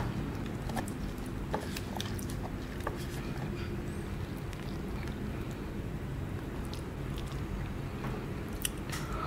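Fried chicken pieces being dipped by hand into a plastic tub of thick Samyang sauce and set down on the board: scattered small clicks and taps over a steady low hum.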